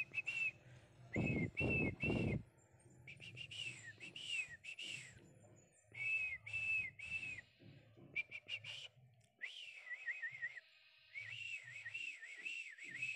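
High whistled notes, each a short arched note, repeated in quick runs of two to four with gaps between runs. About one to two and a half seconds in, loud low rushes of noise cut across them.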